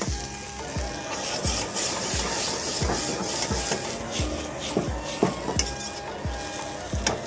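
Vegetables sizzling in a wok over a high gas flame, with a metal ladle stirring and scraping through them and clattering against the pan as the wok is tossed.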